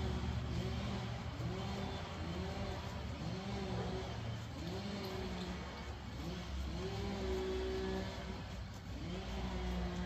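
Small petrol engine, most likely a chainsaw, revving up and dropping back over and over, about once a second, with one longer rev held about two-thirds of the way through.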